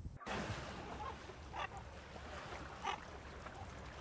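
A gull giving a few short calls, the clearest about one and a half and three seconds in, over a steady hiss of surf.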